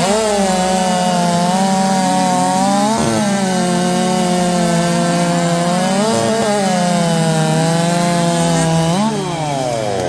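Racing chainsaws at full throttle, cutting through a log, the engine pitch dipping briefly as the chain bogs in the wood. About nine seconds in, the pitch falls away as the saws come off the throttle at the end of the cut.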